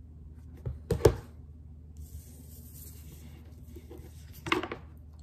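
Tarot cards being handled: a sharp tap about a second in, then a faint sliding rustle as a card is drawn away from the other, and another short handling sound near the end.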